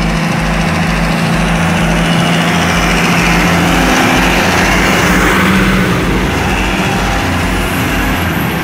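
Diesel semi-truck hauling a shipping container drives up and passes close by. Its engine and tyres grow louder toward the middle as it goes past, then ease off.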